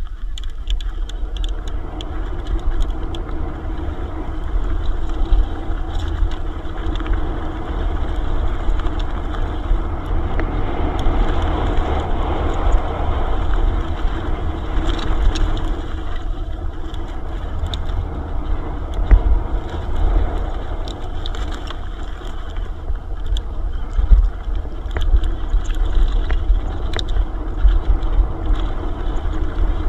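Wind buffeting the microphone and tyre rumble from an electric mountain bike riding fast down a trail, with frequent sharp clicks and rattles from the bike over rough ground.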